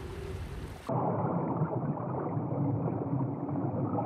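Muffled underwater ambience: a steady, low, noisy wash with the highs cut off, starting abruptly about a second in. Before it, a brief airy hiss.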